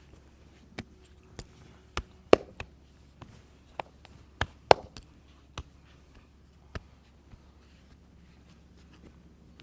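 Hands working in a head and back massage: about a dozen sharp, irregular slaps and taps, two of them a few seconds in much louder than the rest, dying away after about seven seconds.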